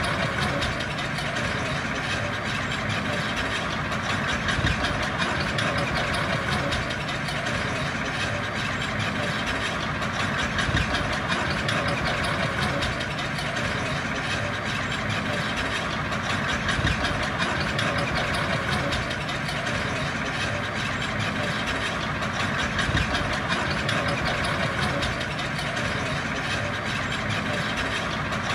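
Diesel engine of heavy earthmoving machinery running steadily, swelling briefly in level about every six seconds.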